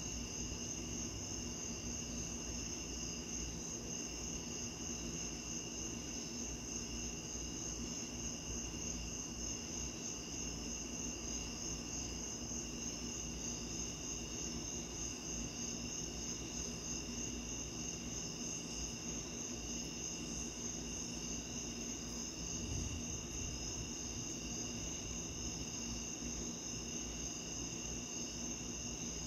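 Night insects, crickets by their sound, trilling steadily in a chorus of several high-pitched pulsing tones. Another, lower trill joins partway through. Beneath them is a steady low background noise, with one soft low thump about three-quarters of the way in.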